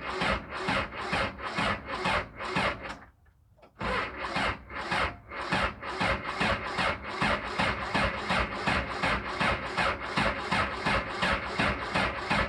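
Case 580K backhoe's diesel engine being cranked over by its starter on a cold start, with a rhythmic chug of about four compression beats a second and no catch. The cranking stops about three seconds in, then starts again a moment later.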